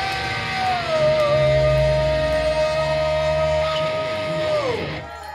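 Progressive metal band playing live through a club PA, with a long held high note over a heavy low chord. The note slides down a step about a second in, holds, then drops away steeply near the end as the music thins out.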